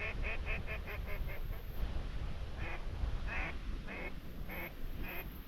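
Duck quacking: a quick run of short quacks that trails off over the first second and a half, then five slower, longer quacks, over a steady low rumble.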